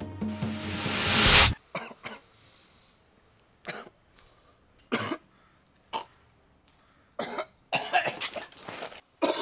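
Drum-led background music stops abruptly about a second and a half in. Then a teenage boy coughs and gags in short separate fits that come faster and more strained near the end: he is choking on a gummy worm.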